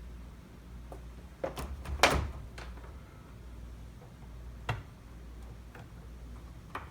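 A few scattered clicks and knocks from handling a wall-mounted sprinkler timer and its wire terminals as the zone wires are connected, the loudest about two seconds in, over a low steady hum.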